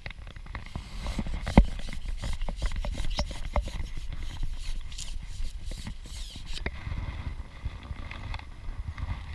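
Fishing gear being handled close to the microphone: a quick run of clicks, knocks and rubbing, with one sharp knock about one and a half seconds in. The handling stops at around six and a half seconds, leaving a low rumble.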